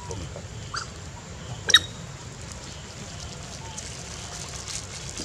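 Macaques give a few short, high squeaks, the loudest about two seconds in, over a steady low rumble.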